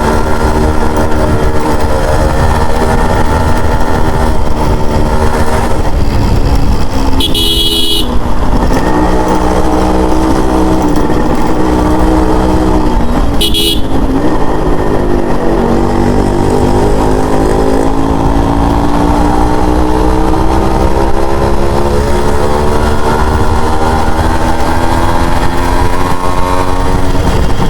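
Yamaha RX100's two-stroke single-cylinder engine running under way on the road, its pitch dropping and rising with the throttle and then climbing steadily through the second half as the bike accelerates. A horn toots briefly about seven seconds in and again about thirteen seconds in.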